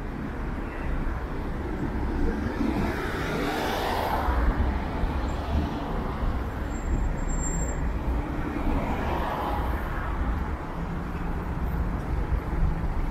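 Road traffic: a steady low rumble of motor vehicles, with two passing vehicles swelling and fading, one about four seconds in and another around nine to ten seconds in.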